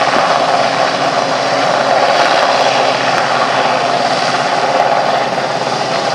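Royal Navy Westland Sea King helicopter hovering, its twin turboshaft engines and main rotor making a loud, steady noise.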